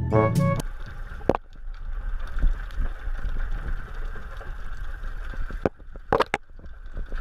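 Underwater ambience: a steady, muffled low rumble of moving water with a faint hiss and a few sharp clicks.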